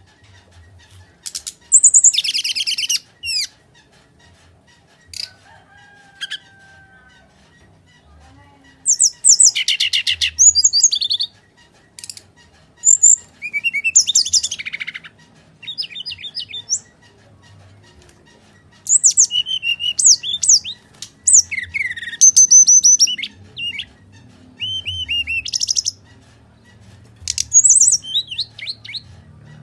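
Brown-chested jungle flycatcher (SRDC) singing its agitated 'fighting' song: loud bursts of fast, high chattering trills and sharp whistled notes, phrases of a second or two with short pauses between.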